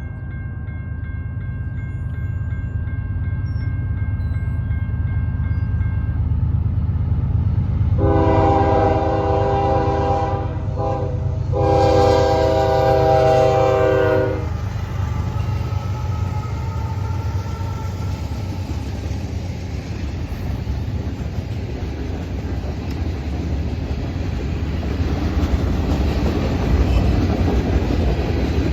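Diesel freight locomotives' air horn sounding two long blasts, about eight and twelve seconds in, over the steady low rumble of the approaching Norfolk Southern manifest train. The rumble and rail noise grow louder near the end as the train nears.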